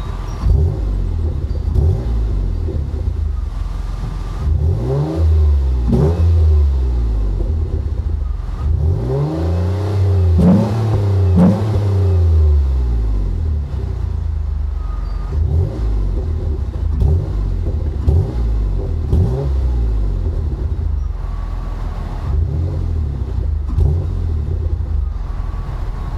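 Mercury Cougar's exhaust, a 2.5-inch Trubendz cat-back with a Dynomax Super Turbo muffler, as the parked car's engine is revved in repeated throttle blips from idle. The longest and highest rev comes about ten seconds in, with a run of quicker short blips later.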